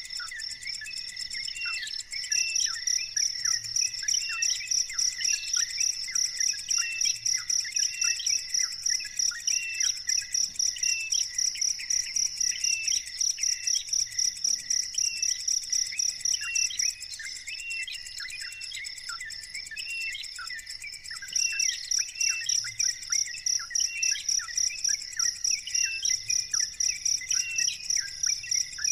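An insect calling in loud, regular high-pitched pulses, about two a second, that stop for a few seconds past the middle and then start again. Under it, short chirps repeat all through.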